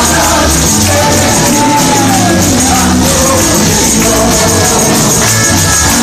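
A man singing a worship chorus into a handheld microphone, amplified through the church PA over a live band with bass and percussion; the loud sung line rises and falls with long held notes.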